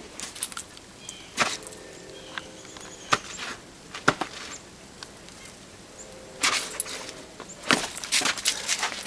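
Steps crunching on packed snow: single sharp crunches every second or two, then a quick run of them near the end.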